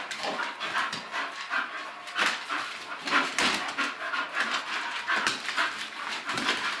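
English bull terriers panting hard in quick, irregular breaths while play-wrestling.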